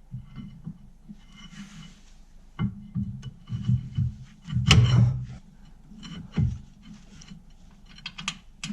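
Irregular knocks, clicks and scraping of tools and brake parts being handled during reassembly of a rear brake caliper, loudest in a cluster of thuds about halfway through.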